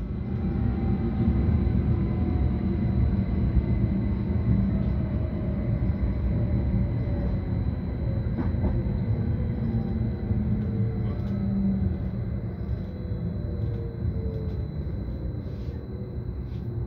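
Interior of a GYSEV Stadler FLIRT electric multiple unit on the move: a steady running rumble with a whine of several tones that falls slowly in pitch as the train slows for a station stop.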